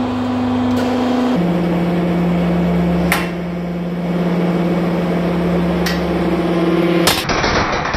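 Hydraulic press's electric pump motor humming steadily under load, stepping down to a lower pitch about a second and a half in, while the ram crushes an aluminium motorcycle engine block. Sharp cracks sound out about three and six seconds in. A last loud crack near the seven-second mark is followed by an abrupt change in the sound.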